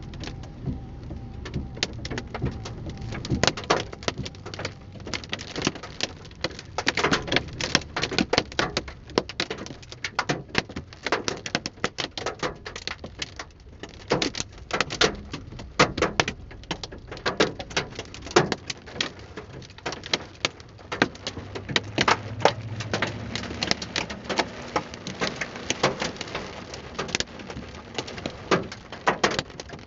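Hailstones pelting a car's body and glass: a dense, irregular rain of sharp clicks and pings, some much louder than others.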